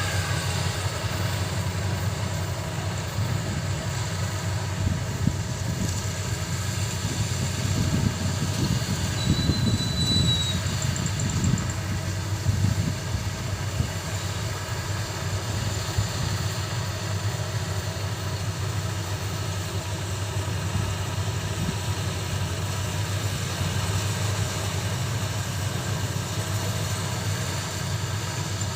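Combine harvester's diesel engine running steadily with a low hum, growing rougher and a little louder for a few seconds about eight seconds in.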